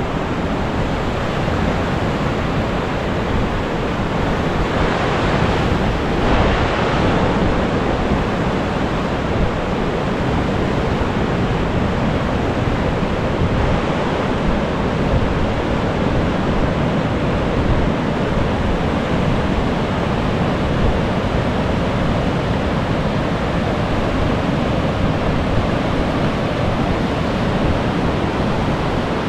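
Pacific surf breaking on the rocks and beach below sea cliffs: a steady wash of wave noise that swells a few seconds in and again about halfway.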